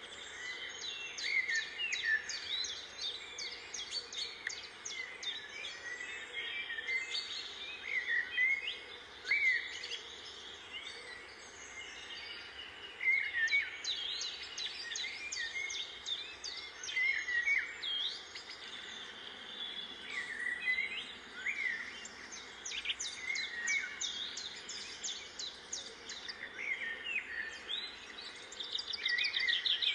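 Small birds chirping and twittering, many short calls and quick trills one after another, over a faint steady background noise.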